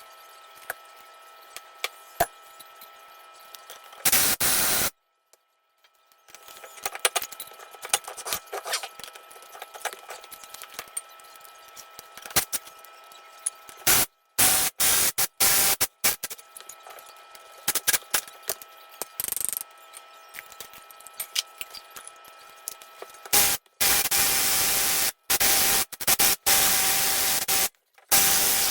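Impact wrench run in several loud bursts on the cylinder head bolts of a Kohler Command CV16 engine, with the longest burst near the end. The bolts don't break loose: the wrench only moves the engine.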